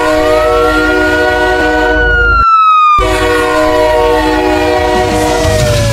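Goal horn blaring: a steady multi-note horn chord with a siren that rises, slowly falls and starts to rise again near the end. The horn drops out for about half a second about two and a half seconds in.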